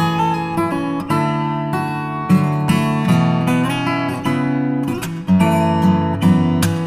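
Background music played on acoustic guitar, plucked and strummed notes in a steady flowing pattern.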